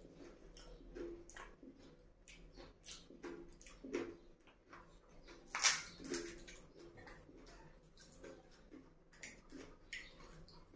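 A person eating pani puri close to the microphone: many short crunches of crisp fried puri shells and wet, squishy chewing. The loudest crack comes a little past halfway, when a puri shell is broken open by hand.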